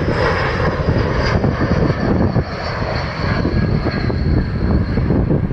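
Jet airliner engine noise, a steady broad rush with a deep rumble underneath.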